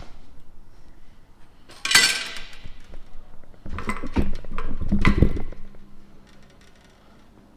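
Metal clanking and clattering: one sharp clank with a ring about two seconds in, then a run of knocks and rattles from about four to five and a half seconds, dying away near the end.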